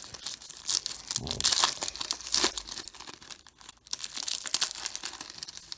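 Foil wrapper of a baseball card pack being torn open and crinkled by hand, a run of irregular crackling and rustling.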